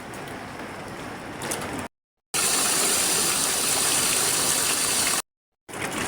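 Steady rushing water noise across edited cuts. A moderate stretch breaks off into a brief silence, then about three seconds of much louder, hissing rush, another brief silence, and the moderate noise again.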